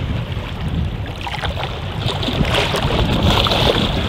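Wind buffeting the microphone in a steady low rumble, over choppy sea water lapping and splashing, with irregular splashes most of the way through.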